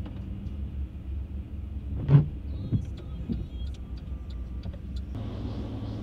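Inside a moving vehicle on a wet road: a steady low engine and road rumble, a single thump about two seconds in, then a scatter of light clicks. Near the end a wider hiss of tyre and road noise comes in.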